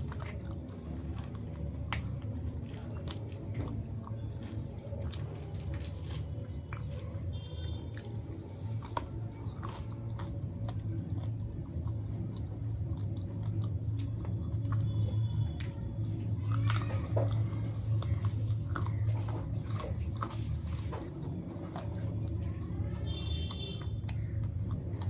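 A person chewing and eating food close to the microphone, with many small wet clicks and smacks, over a steady low hum.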